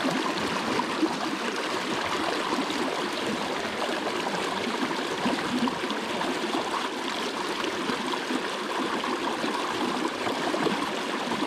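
River current flowing and gurgling around a fallen log at the bank, a steady rush of moving water.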